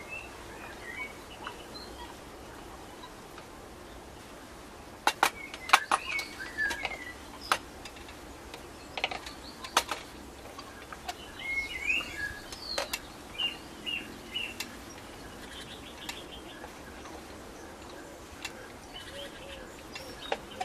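Small birds chirping on and off, with a run of sharp clicks and knocks between about five and ten seconds in.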